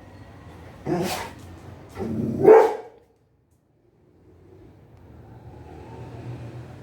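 A dog barking twice, about a second apart, the second bark longer and louder. The dog is worked up over something moving on the roof of the house.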